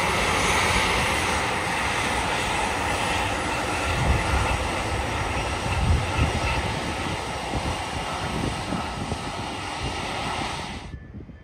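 Airbus A321neo jet engines running at high power as the airliner speeds along the runway, a loud steady roar with low rumbling. It cuts off suddenly near the end.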